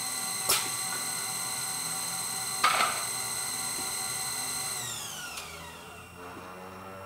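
Zahoransky ET120 CNC brush-making machine running with a steady high-pitched whine, broken by two sharp clacks about half a second and two and a half seconds in, the second followed by a short rush of noise. About five seconds in, the whine falls steadily in pitch as the drive spins down.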